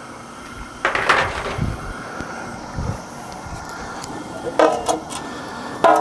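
Whole white onions and garlic being dropped into a large pot of boiling seasoned water: a few splashes and dull thumps over a steady rushing background.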